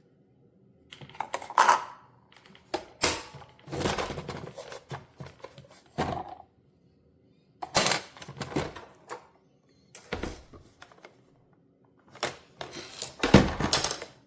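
Irregular plastic clicks, knocks and rattling from a small single-serve coffee maker being handled: its lid, basket and buttons are worked and the parts set down. The clatter comes in separate bursts, and the loudest is near the end.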